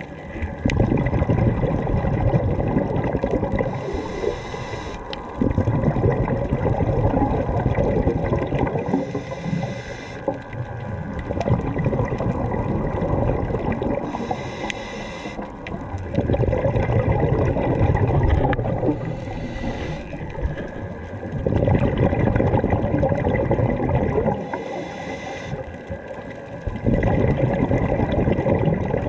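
Scuba diver breathing through a regulator, heard underwater: long bubbling rushes of exhaled air alternate with shorter hissing inhales, about one breath every five seconds.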